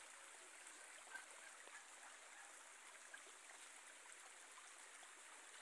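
Faint, steady hiss of rain falling and rainwater running over a muddy dirt street.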